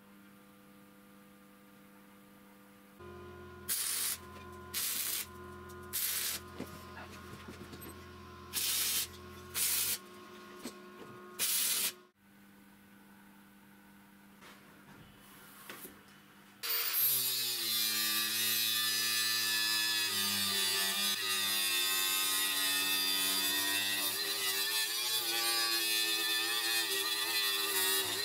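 A faint steady hum, then a low motor hum broken by several short, sharp noisy bursts. For the last eleven seconds or so an angle grinder runs loudly and steadily, grinding a steel plate.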